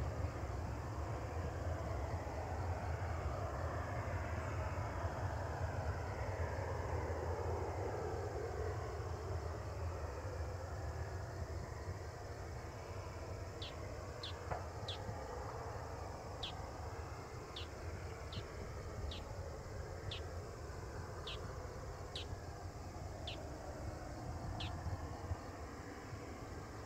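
Boeing 737-800's CFM56 jet engines running at low power as the airliner rolls away down the runway, a falling whine fading over the first several seconds over a steady low rumble. From about halfway, a dozen short high chirps come at irregular intervals.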